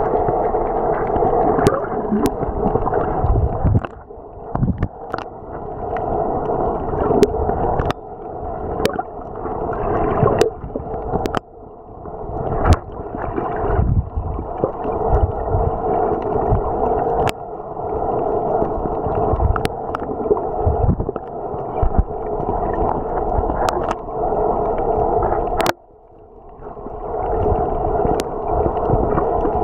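Sea water heard underwater by a snorkeller's camera: a steady gurgling rush of moving water, with scattered sharp clicks and a few brief drops in the rush.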